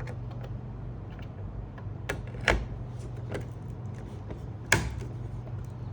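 A few sharp clicks and knocks of computer parts being handled, the loudest near the end, over a steady low hum.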